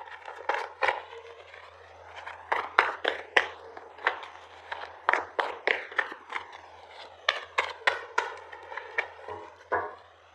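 Tarot cards being shuffled and handled: an irregular run of sharp card snaps and slaps, some in quick clusters, over a low steady hum.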